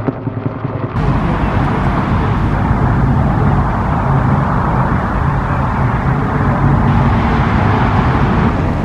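Engine running steadily with a low rumble, under a wash of outdoor noise; it starts abruptly about a second in.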